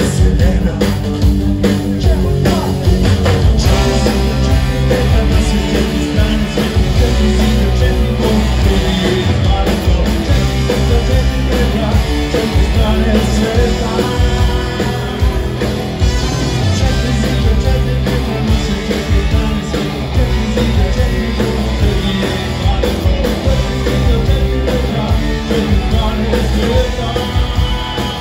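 Live rock band with a brass section playing a song: electric guitars, bass, drums, trumpet and trombone, with a singer's voice, recorded from the audience in a club.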